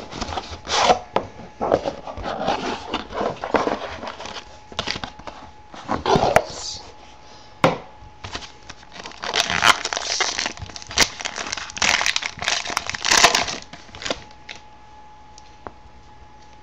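A sealed trading-card box being opened by hand: plastic wrapper crinkling and tearing and cardboard rustling in irregular bursts with sharp clicks, busiest a few seconds before the end and dying down near the end.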